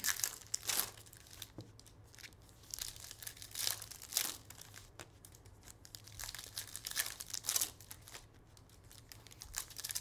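Foil trading-card pack wrappers being torn open and crumpled, in short, scattered crinkling bursts.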